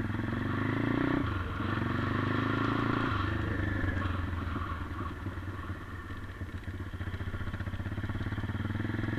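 A 140cc pit bike's single-cylinder four-stroke engine running as the bike is ridden over dirt. It pulls hard for the first few seconds, eases off with the throttle about four seconds in, then picks up again near the end.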